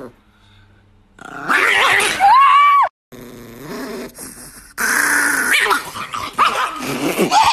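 A small chihuahua growling and snarling angrily in two loud spells, the first rising into a high held whine, with a quieter gap between them.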